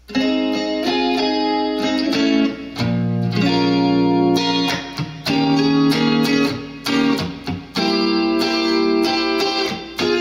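2001 Paisley Fender Telecaster electric guitar strumming a run of jazzy chords that work their way up the neck, each chord ringing briefly before the next, with a few short breaks between them.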